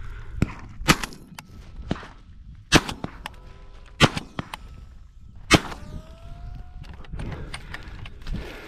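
Four loud gunshots fired at intervals of about one to two seconds, with a few softer knocks between them.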